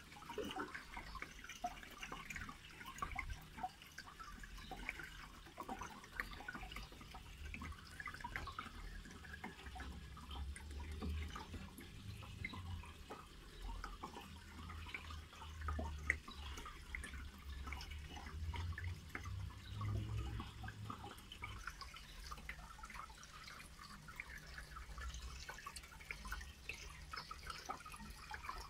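Water in a fish tub dripping and bubbling: a constant irregular patter of small drops or bubbles over a low rumble.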